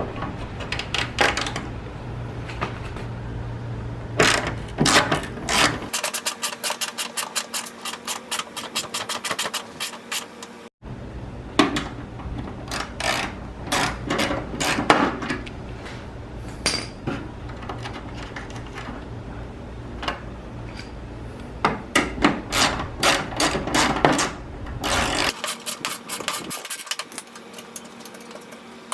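Ratchet with a 5/16 socket clicking in quick runs, with short pauses between them, as bolts are backed out. A steady low hum runs underneath through much of it.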